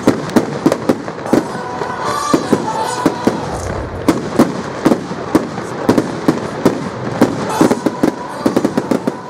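Fireworks display: a rapid, irregular run of loud bangs and cracks from bursting shells, several a second.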